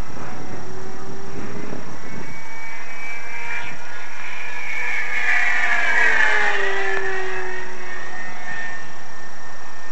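Electric motor and propeller of a GWS Corsair radio-controlled model plane whining as it flies past. The pitch rises, peaks and loudest about six seconds in, then drops as it passes by.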